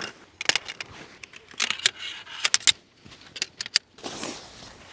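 Metal tent poles and cot-tent frame clinking and rattling as they are pulled from their carry bag and unfolded: a quick, irregular run of sharp metallic clicks. Near the end the clicks give way to a soft rustle.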